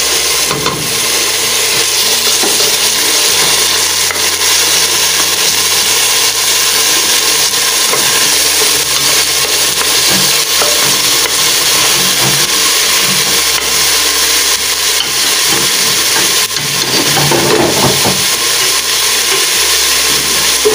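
Chopped onion and garlic sizzling steadily in hot oil in a frying pan: the aderezo base frying.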